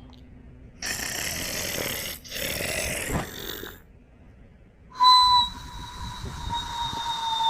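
Snoring with a whistle: two breathy snores, then about five seconds in a long, high whistling note that slowly falls in pitch.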